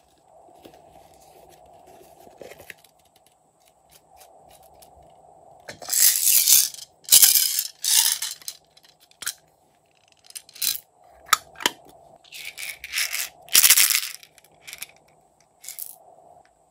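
Small plastic beads, sequins and glitter pieces shaken out of plastic containers, clattering onto glossy slime in plastic trays. The clattering comes in several loud bursts from about six seconds in, with single plastic clicks from the containers in between.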